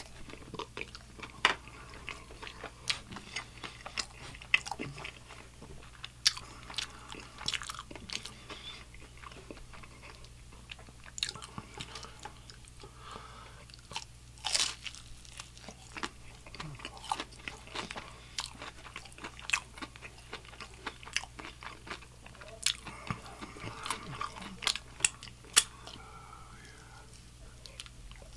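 Close-up biting and chewing of crispy Nashville hot fried chicken: irregular sharp crunches of the fried breading, with chewing between bites.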